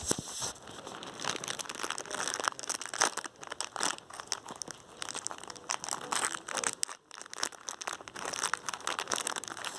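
Plastic snack wrapper crinkling as it is handled and opened, a run of quick irregular crackles with a brief lull about seven seconds in.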